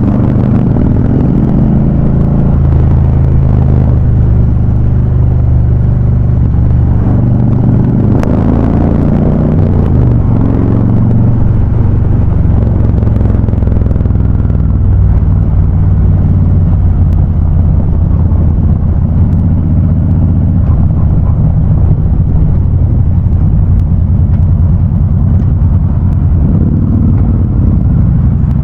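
Harley-Davidson Ultra Classic V-twin engines running through Vance & Hines High Output exhausts while riding, a loud, deep, steady exhaust note. The engine pitch shifts between about eight and eleven seconds in.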